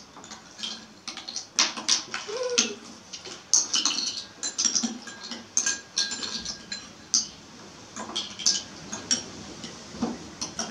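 Metal spoons held in the mouth clinking and scraping against ceramic bowls, with small plastic caps clattering into the bowls: a run of irregular light clicks and taps.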